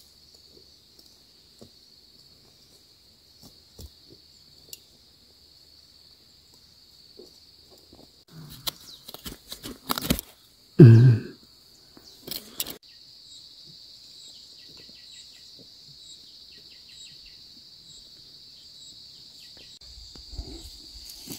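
Steady high chirring of insects, with a run of scrapes and knocks about halfway through as a small hand hoe digs weeds out of the soil; the loudest is a thump.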